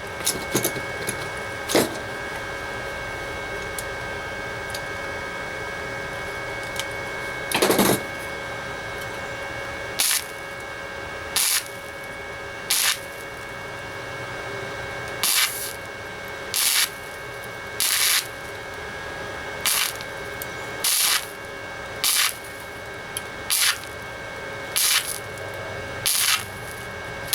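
Titanium Easy Flux 125 flux-core welder stitch-welding a sheet-metal patch in short bursts of arc. There are two early bursts, then from about ten seconds in about a dozen brief bursts roughly a second and a half apart, over a steady hum.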